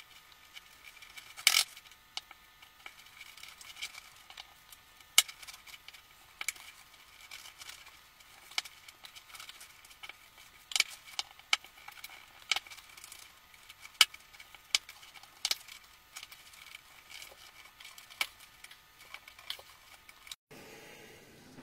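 Irregular sharp metallic clicks and clinks from a springform cake pan being handled and turned, its spring latch worked by hand, about one every second or so.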